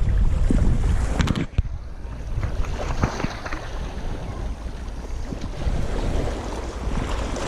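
Wind buffeting the microphone over the wash of waves, heavy for about the first second and a half, then easing to a steady hiss. A few sharp clicks sound as the buffeting drops away.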